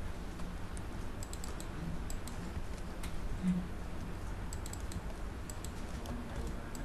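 Computer keyboard keys being typed in short clusters of clicks, over a steady low background hum.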